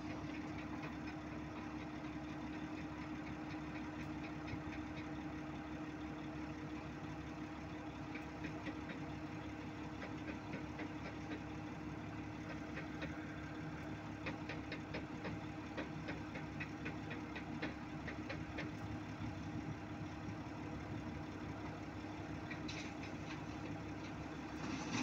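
Heavy diesel earthmoving machinery engine idling steadily, with a rapid fine ticking through the middle and a short hiss near the end.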